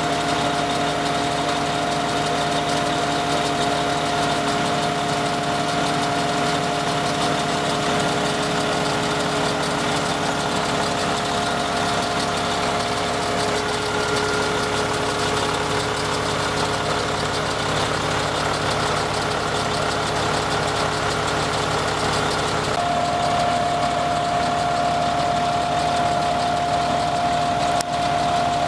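Pierce fire-rescue truck's diesel engine idling steadily with a constant hum. The hum changes tone about three quarters of the way through.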